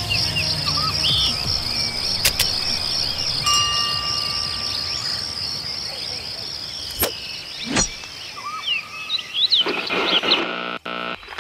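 Outdoor bush ambience: birds chirping over a steady, high, pulsing insect drone. A short chime comes about three and a half seconds in, with a few sharp clicks later. Electronic music starts near the end.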